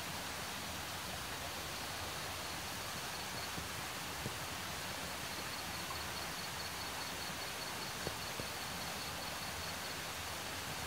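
Steady hiss of outdoor forest ambience, with a faint high trill of rapid pulses from about two seconds in until near the end, and a couple of soft clicks.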